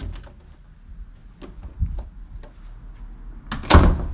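Scattered soft knocks and clicks over a low rumble, with one louder thud about three and a half seconds in.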